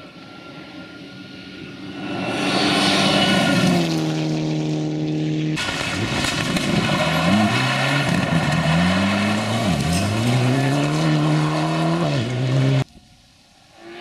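Mitsubishi Lancer Evolution rally car's turbocharged four-cylinder engine at full throttle on a gravel stage. It builds to a steady high note, then after an edit comes past closer with the revs rising and falling several times through gear changes, and is cut off abruptly near the end. A fainter engine follows.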